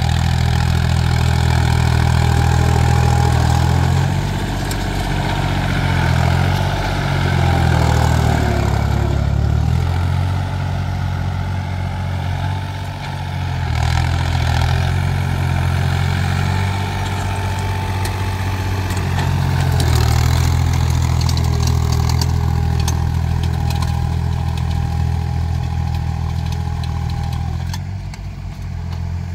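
Small diesel tractor engine running under load as it cuts furrows in a fast gear. The engine note dips and picks up again several times.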